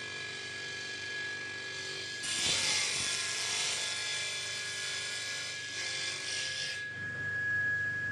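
Table saw running with a steady whine while its blade cuts a kerf along a thin wooden board. The cutting is loudest from about two seconds in and drops away about seven seconds in.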